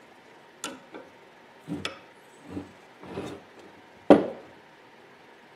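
Handling noises on a wooden workbench as a grease fitting is threaded into a steel control arm: several light clicks and knocks of metal tools and parts, then a louder knock with a short ring about four seconds in.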